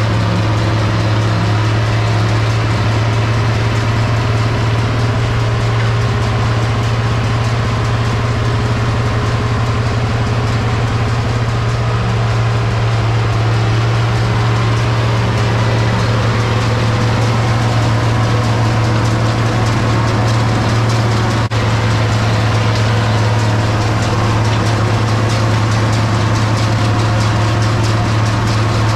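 International 1256 tractor's turbocharged six-cylinder diesel running steadily under load, driving a New Holland 790 forage chopper as it chops oats and peas and blows them into a wagon. The result is a steady, loud drone with a strong low hum.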